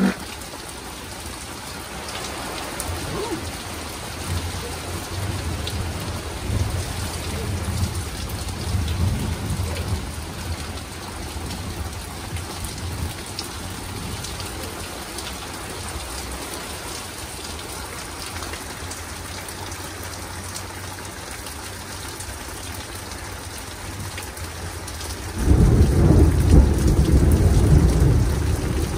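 Thunder rolling over a steady hiss of rain: a low rumble swells and fades over the first ten seconds or so, then near the end a much louder peal of thunder rumbles for about three seconds.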